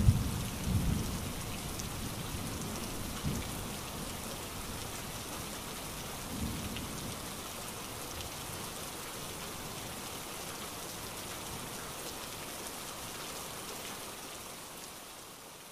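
Steady rain falling, with a few low rumbles in the first seconds. It fades out near the end.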